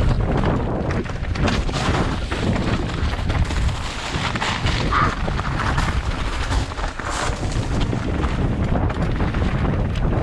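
Mountain bike rattling and knocking over rough trail, with wind buffeting the microphone: a continuous low rumble broken by many short knocks.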